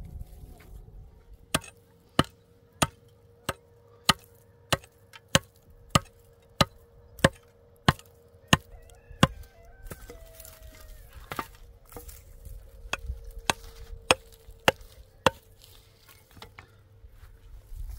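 A hammer striking a hollow concrete block in an even series of sharp knocks, about one and a half a second, chipping away at the block. There is a short pause about ten seconds in, and then the knocks resume.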